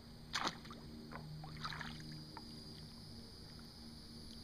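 Kayak paddle strokes in calm water: soft splashes and drips off the blade, with one sharper splash or knock about half a second in.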